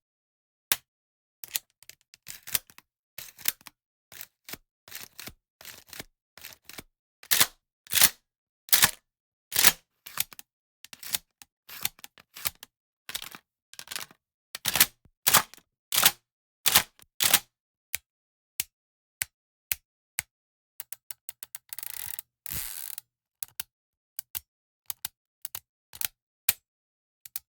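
Firearm actions being worked by hand for foley: a long run of sharp metallic clicks and clacks from bolts, pumps and slides. A rasping metal scrape lasting about a second comes a little past the middle.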